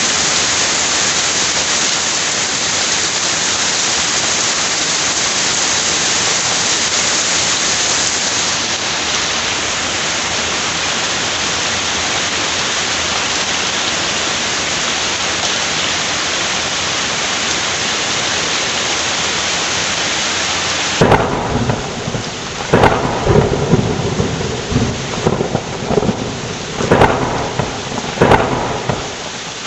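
Heavy rain falling steadily. About two-thirds of the way through, thunder breaks in with a series of loud cracks and rumbles over the rain.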